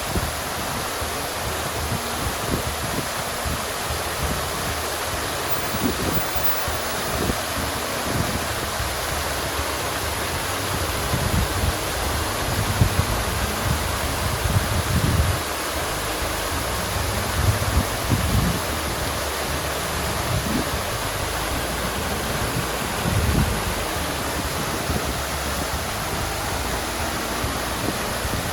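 Water fountain splashing: a steady rush of falling water, broken by occasional low rumbles.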